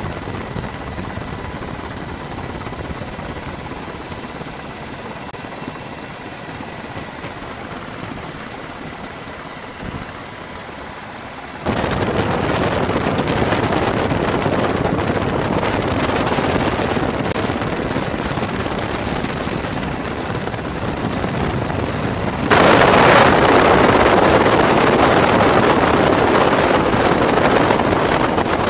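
Steady rushing noise of a helicopter's engine and rotor, heard from aboard, with a faint steady whine. It gets abruptly louder about twelve seconds in and again just past twenty-two seconds.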